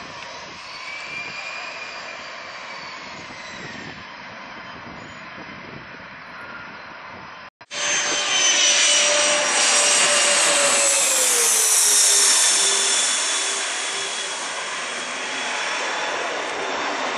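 Jet airliner engines: a fainter jet whine, then after a sudden brief break a much louder jet passing low overhead, its engine whine falling in pitch as it goes by, then easing off.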